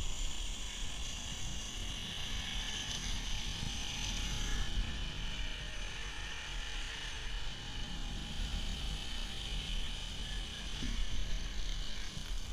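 Zipline trolley pulleys running along the steel cable with a steady high whir that shifts a little in pitch as the speed changes. Wind buffets the microphone as a low rumble underneath.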